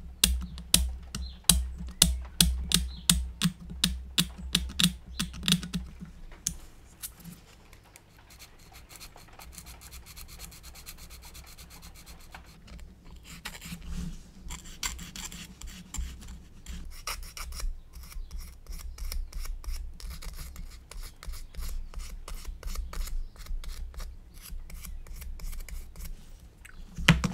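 Moulded cable detail being abraded by hand off a plastic scale-model bay roof part: quick back-and-forth strokes, about four a second, with a quieter pause of several seconds in the middle before the strokes resume.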